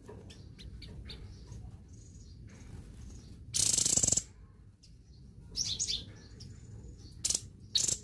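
Caged songbird calling: scattered short high chirps and, about halfway through, one loud harsh raspy call lasting under a second. Near the end come two brief sharp bursts as the bird hops and flutters on its perch.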